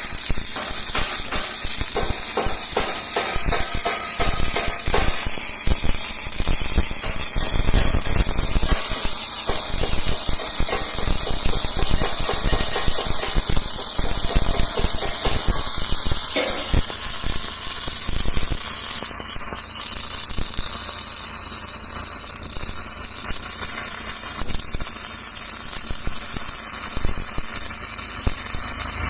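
Electric welding arc crackling and hissing steadily, with a dense rapid crackle that is heaviest in the first half and settles into a smoother hiss later.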